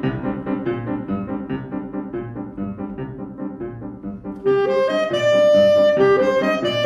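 Grand piano playing a rhythmic jazz introduction in steady repeated chords. About four and a half seconds in, an alto saxophone comes in louder over it with long held melody notes.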